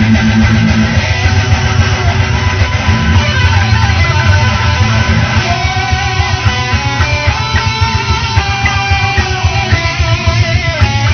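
Guitar-led band music with strummed guitars and bass over a steady beat; about halfway through, a lead melody line with bending notes comes in on top.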